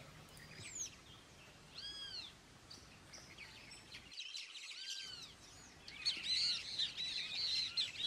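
Wild birds calling: single arched calls about two seconds in and again near five seconds, then a burst of many overlapping chirps in the last two seconds.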